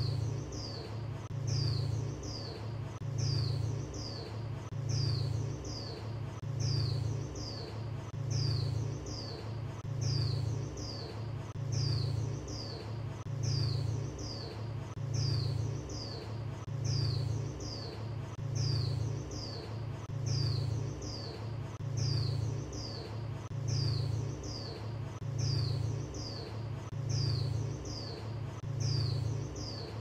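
Female Swinhoe's white-eye (khuyên mái) call, a short high falling chirp repeated at an even pace about three times every two seconds, used to stir male white-eyes into singing. Underneath runs a low rumble that swells and fades about every two seconds.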